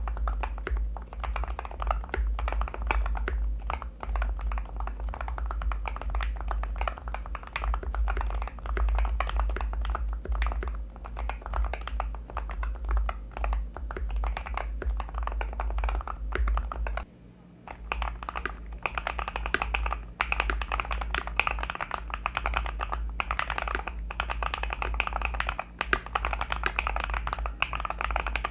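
Fast, continuous typing on an Irok NA87 Pro magnetic gaming keyboard fitted with Moyu Studio Black Night HE magnetic switches. Just past the middle there is a brief pause, then typing resumes on NEO Lavender HE magnetic switches with a brighter click.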